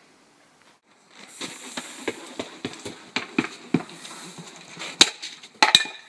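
Footsteps running on concrete paving slabs, about three quick steps a second, starting about a second in, with a few louder, sharper slaps near the end.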